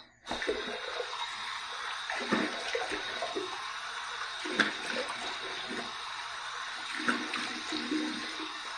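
Warm water running steadily from a bathroom tap into the sink, starting just after the beginning, with a few irregular splashes as the water is cupped and splashed onto the face for an after-shave rinse.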